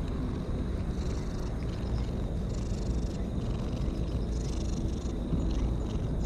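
Orange-and-white cat purring steadily while being stroked under the chin, contented.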